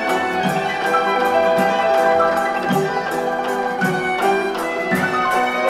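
Background music score with sustained melodic notes over a steady beat.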